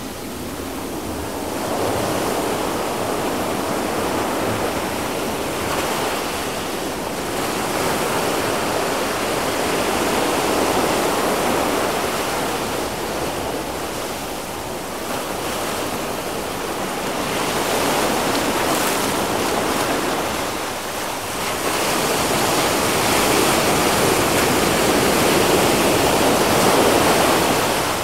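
Ocean surf: small waves breaking and their foam washing up a sandy beach, a steady hiss that swells and eases in slow rounds several seconds apart, loudest near the end before it falls away.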